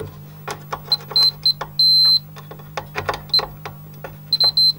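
Digital multimeter's continuity beeper chirping in short, broken beeps and one longer beep as the test probes scrape and click across an amplifier's fuse holders, testing the fuses for continuity. A steady low hum runs underneath.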